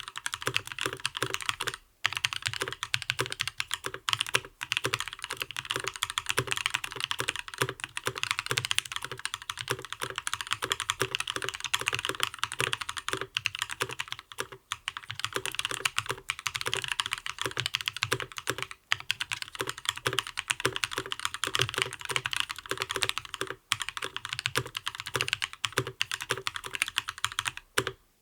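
Continuous fast typing on a custom mechanical keyboard in a Gentoo case, fitted with lubed Gazzew Linear Thock switches, an aluminium plate and ePBT Soju PBT keycaps. The run of keystrokes is broken by a few brief pauses and stops just before the end.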